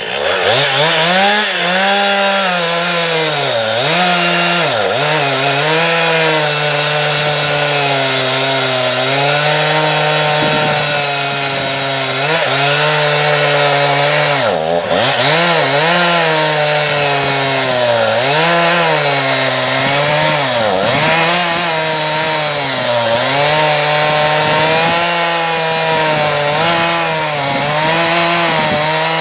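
Chainsaw with an 18-inch bar running at high speed while it cuts into a tree stump. The engine pitch drops many times as the chain bogs down in the wood, then climbs back each time.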